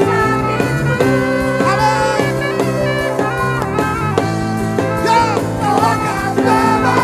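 Live worship band playing an upbeat praise song with bass, drums and keyboard, with some voices singing.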